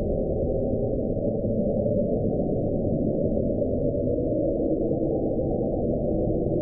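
NOAA hydrophone recording of the 1999 sound "Julia", officially attributed to an iceberg scraping the seafloor: a steady, low, muffled underwater noise with nothing high in it.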